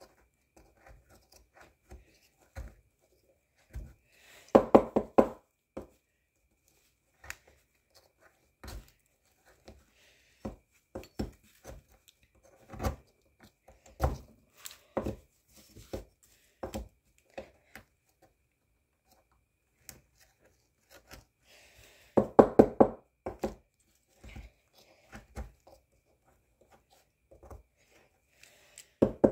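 A small digging tool chipping and scraping at a crumbly plaster dig-kit block: scattered taps and scrapes, with two quick runs of rapid tapping, one about four seconds in and one about twenty-two seconds in.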